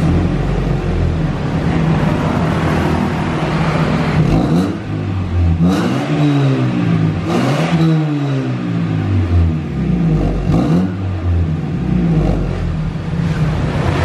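Toyota Corolla engine and exhaust idling, then revved in several quick blips from about five seconds in, each rising and falling in pitch.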